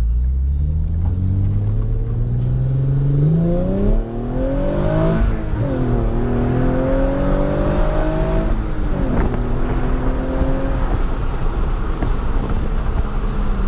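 Hyundai Genesis Coupe's naturally aspirated V6 under hard acceleration through a CNT v3 cat-back exhaust with the secondary cats replaced by test pipes. The engine note climbs steadily, drops sharply with an automatic upshift a little past five seconds in, climbs again, drops with a second upshift around nine seconds in, then settles to a steady cruise.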